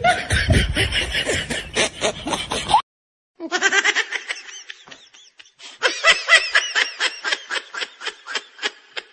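Laughter: a fast string of short pitched snickering pulses. It cuts off abruptly to silence about three seconds in, then resumes and runs on.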